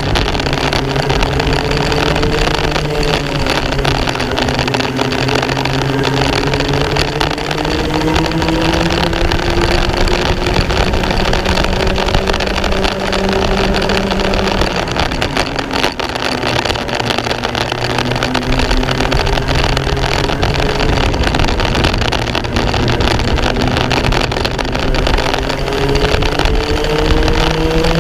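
Racing kart engine heard from onboard at race pace, its pitch climbing slowly through a long acceleration, dropping around the middle, then climbing again near the end, over a constant rush of wind and rumble.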